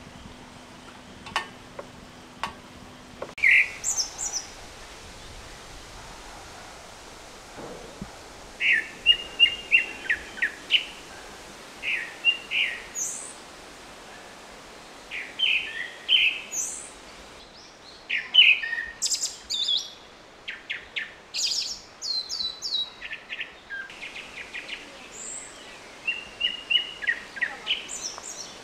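Songbirds singing: short phrases of quick, high chirps repeated every second or two, over a faint steady background. In the first three seconds there are only a few faint clicks and a low hum, which stop abruptly before the birdsong begins.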